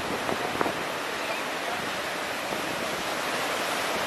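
Steady wash of shallow surf breaking along the shore, mixed with wind noise on the microphone.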